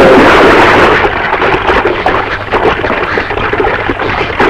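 A loud splash as a person plunges into a well, followed by continuous choppy splashing as he thrashes about in the water, unable to swim.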